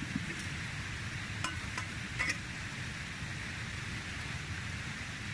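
A few small clicks and clinks from a mug being handled, about one and a half to two and a half seconds in, over a steady outdoor hiss.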